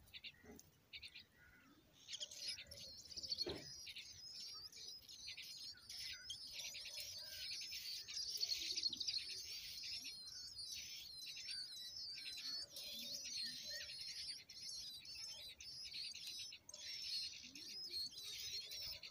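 Nestlings in a grass nest giving rapid, high-pitched begging chirps that run together into a continuous twittering, starting about two seconds in. A brief soft knock sounds early on.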